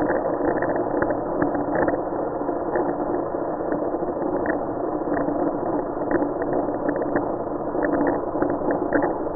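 A power grinder running steadily while cutting off the end of a small steel bolt: a held hum with a dense crackle of short ticks over it. The sound is muffled, with no treble at all.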